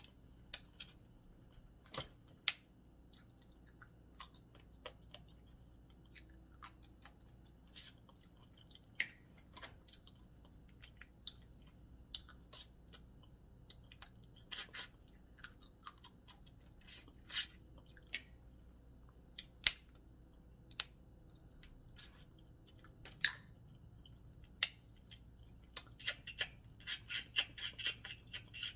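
Seafood being eaten by hand: scattered sharp clicks and cracks of shells being broken and picked apart, with quiet chewing. Near the end comes a short spell of rapid crackling.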